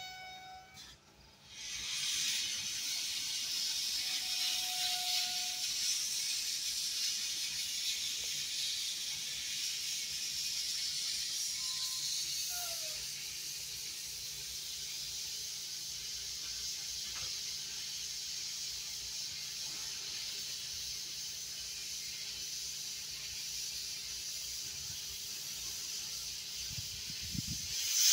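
Steady steam hiss from a standing 1937 Porter 0-4-0T steam tank locomotive, swelling to a louder gush near the end.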